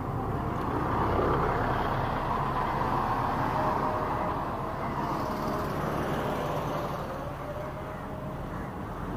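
A city bus passes close by, its engine and tyre noise loudest about a second in and then slowly fading. Steady road traffic follows as a small lorry and a car approach.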